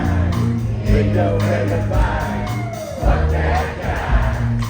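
Live rock band vamping on a steady bass and drum groove while the audience cheers and shouts, the crowd noise swelling in the middle.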